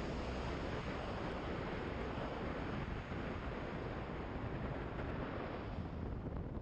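Steady rushing wind noise on the microphone of a motorcycle-mounted camera at road speed, with the motorcycle's engine running low underneath.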